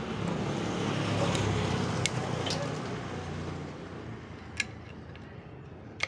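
A steady mechanical running noise with a low hum that fades away over the last few seconds, with a few sharp clicks.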